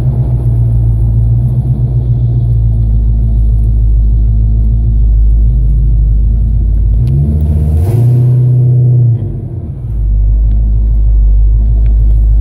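Classic muscle car's engine and exhaust rumbling steadily while cruising, heard from inside the cabin. About seven seconds in the revs rise, then the sound drops off briefly before settling back into the low rumble.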